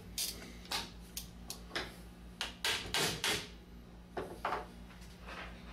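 Handling noise as the cap and cam screw are fitted onto a Columbia automatic drywall taper's head: a string of about a dozen short knocks, clicks and brief scrapes of parts against one another.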